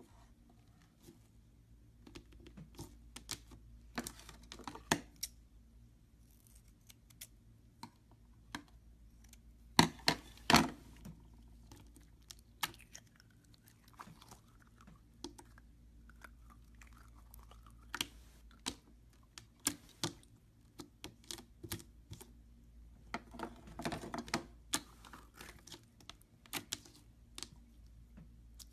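Hands handling a rubber stress ball: scattered sharp clicks and taps with soft squishing as its blue rubber shell is peeled off a pink inner ball that is then squeezed. The loudest are a few sharp clicks about ten seconds in, with a busier run of clicks and squishes near the end.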